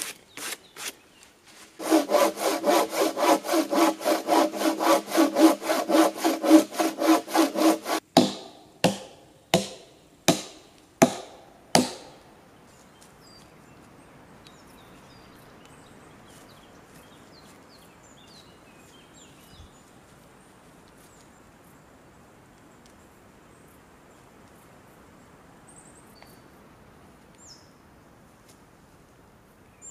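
Hand saw cutting through wood in quick, even back-and-forth strokes, about three or four a second, for some six seconds. It is followed by about half a dozen single axe blows on wood, and then by quiet forest ambience with a few faint bird chirps.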